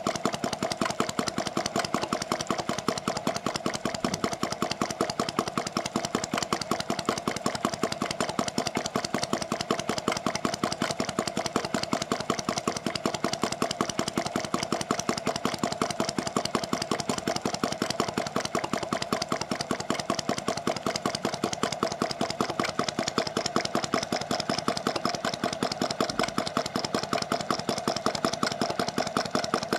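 Self-built model flame-eater (vacuum) hot-air engine running steadily, drawing the burner flame in through its slide valve on each cycle, with a fast, even ticking rhythm and a steady underlying tone.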